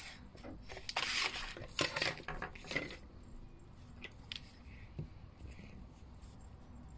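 Paper being handled and rustled on a tabletop for about three seconds, then a few light clicks and taps as the handling quietens.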